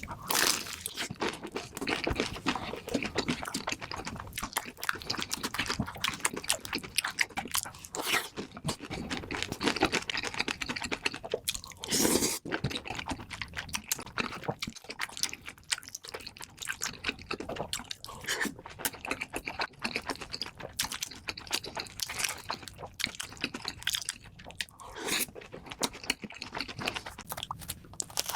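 Close-miked eating: crunchy bites and steady chewing, with a few louder, fuller bites, one right at the start and one about twelve seconds in.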